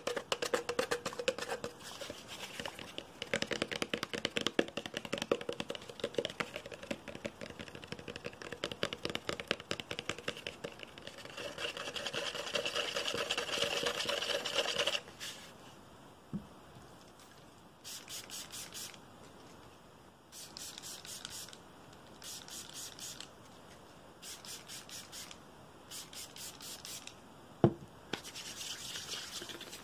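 Fingernails scratching and rubbing fast over the hard, dry shell of a gourd for about fifteen seconds. Then come short bursts of rapid scratchy ticks, each about a second long with pauses between them, and one sharp click near the end.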